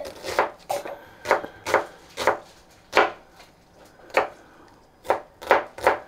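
Kitchen knife chopping an onion on a wooden cutting board: about ten sharp knocks of the blade on the board at an uneven pace, with a pause of about a second in the middle.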